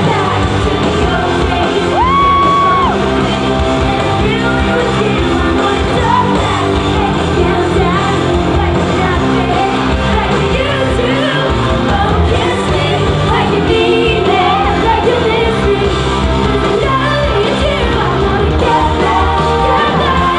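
Live pop-rock band (electric guitar, drums, keyboards) playing with a female lead vocal, heard loud from among the audience in a large arena. There is a long held note about two seconds in, and fans shout and whoop over the music.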